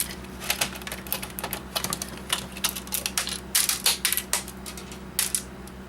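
Irregular light clicks and clatter of plastic and metal parts being handled as an Original Xbox is taken apart, over a steady low hum.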